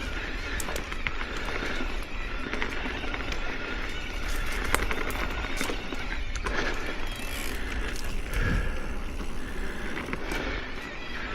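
E-mountain bike riding along a dirt trail: tyres crunching over gravel and roots, with frequent sharp rattles and clicks from the bike, and a low wind rumble on the microphone.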